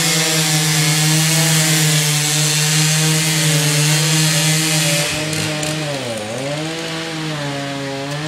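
Chainsaw running at high speed, cutting up a felled tulip poplar on the ground. The engine note holds steady for about five seconds, then drops a little in loudness and dips once in pitch before climbing back.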